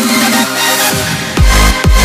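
Electronic dance music: a thinner stretch, then a deep bass and a kick drum come in about a second and a half in, at roughly two beats a second.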